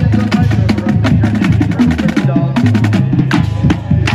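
Marching band playing at full volume. The drumline's rapid snare and tenor-drum strokes drive over sustained low brass notes that move in steps.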